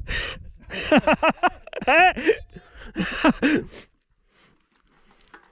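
Indistinct voices talking for about four seconds, with a brief low rumble at the start, then a quiet stretch near the end.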